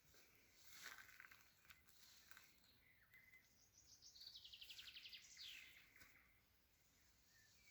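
Songbirds singing faintly, with scattered chirps and whistles. About four seconds in comes a quick trill that falls in pitch, followed by a short downward-sliding whistle.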